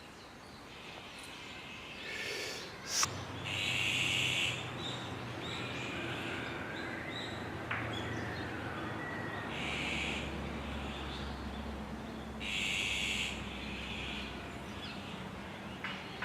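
Wild birds calling in woodland: a few short bursts of high calls, about four in all, over a low steady hum.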